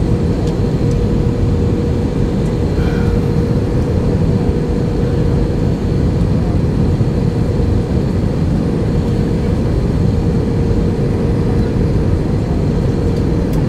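Steady cabin noise inside an Airbus A320 on its descent to land: a dense, even rumble of airflow and engines with a steady mid-pitched hum running through it.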